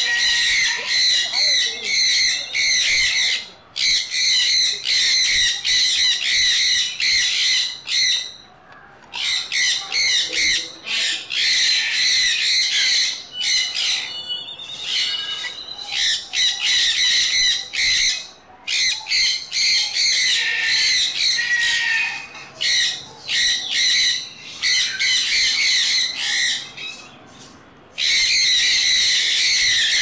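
Sun conures screeching over and over, harsh shrill calls in quick succession with a few brief pauses.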